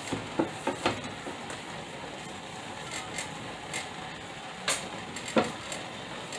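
Scattered light knocks and clicks of things being handled on a kitchen counter, several in the first second and two sharper ones near the end, over a steady faint hiss.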